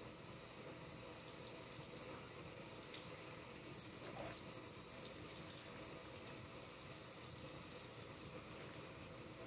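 Soapy kitchen sponge squeezed over a sink full of suds, water streaming and trickling from it into the foamy water, with small scattered crackles.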